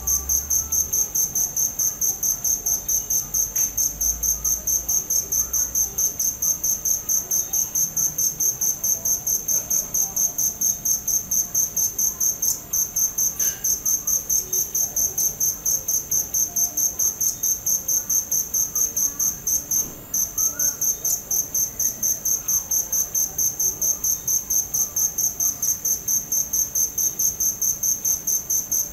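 Crickets chirping: a high-pitched chirp repeated in a fast, even rhythm, with a brief break twice.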